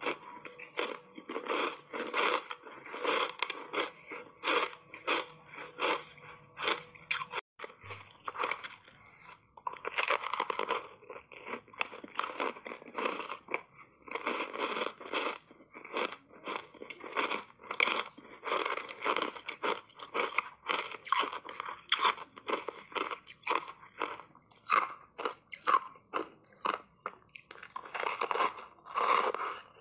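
Ice coated in matcha green tea powder being bitten and chewed close to the mouth: rapid, steady crunching, a few crunches a second, with a short break about seven and a half seconds in.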